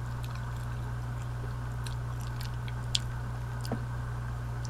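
Close-up chewing and small mouth clicks of a person eating Cajun boudin sausage while pulling its casing apart by hand, with a sharper click about three seconds in. A steady low hum runs underneath.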